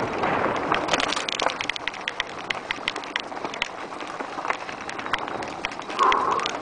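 Mountain bike riding fast down a rocky dirt singletrack: tyres crunching over dirt and stones, with many quick clicks and rattles from the bike jolting over rocks. The rushing noise is loudest at the start, and a brief squeal sounds about six seconds in.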